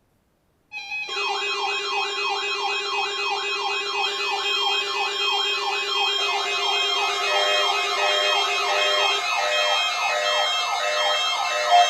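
Electronic siren wailing up and down about twice a second, layered with a steady low tone and short repeating beeps. It starts about a second in after a brief silence, and the low tone drops out near the end.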